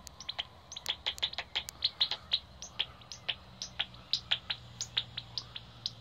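Pipistrelle bat echolocation calls made audible by a Magenta heterodyne bat detector: a rapid, irregular run of short clicks, several a second.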